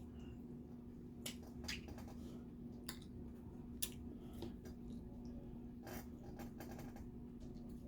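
Shellfish shells being cracked and snapped open by hand while eating: a scattering of short, sharp cracks at uneven intervals, over a faint steady hum.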